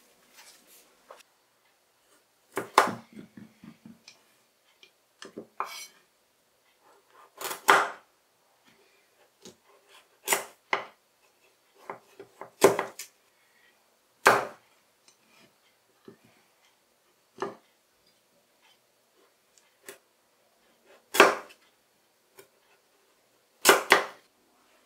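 Kitchen knife cutting through kabocha squash and knocking on a wooden cutting board as the skin is trimmed off the pieces. Single sharp knocks come every two to three seconds, some with a short rattle of smaller taps after them.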